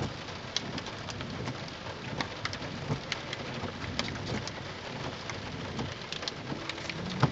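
Rain tapping on a car's windshield and roof, heard from inside the cabin as a steady patter of scattered sharp drops over a low hiss, with one louder knock just before the end.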